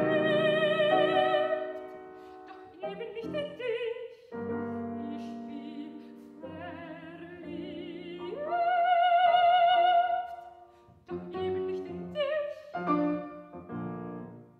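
Soprano singing a German art song with vibrato, accompanied by grand piano. She holds one long high note about eight seconds in. The song then closes with a few short, detached notes.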